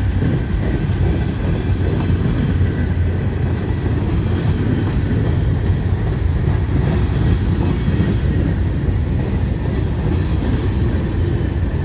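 Covered hopper cars of a heavy freight train rolling past close by, their steel wheels on the rails making a steady low rumble as the train pulls slowly up a grade.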